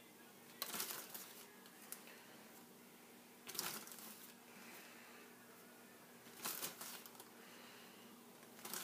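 A measuring spoon scooping flour and knocking against a mug, in short rattly bursts about every three seconds, as level tablespoons of flour are measured in.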